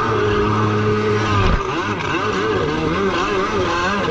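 Yamaha FX1 stand-up jet ski's two-stroke engine running at speed. The pitch holds steady for about a second and a half, then wavers quickly up and down as the revs rise and fall, over the rush of water along the hull.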